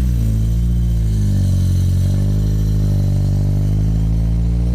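Car engine held at high revs during a burnout, its pitch wavering slightly up and down.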